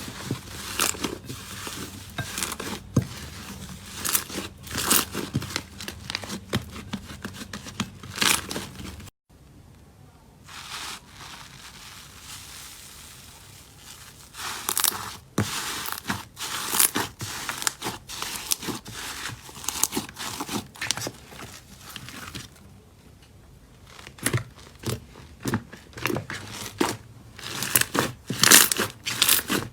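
Slime being squeezed and pressed by hand close to the microphone: an uneven run of crackles and pops. The sound breaks off sharply about nine seconds in, stays quieter for a while, and the crackling grows dense again near the end.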